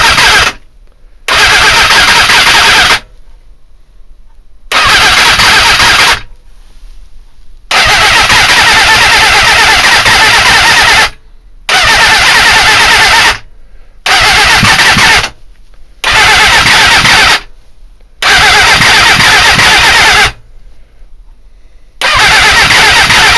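Suzuki GSX-R400 inline-four motorcycle engine cranked on its electric starter in nine loud bursts of one to three seconds, with short pauses between. It turns over but never catches: a no-start, with the engine not firing.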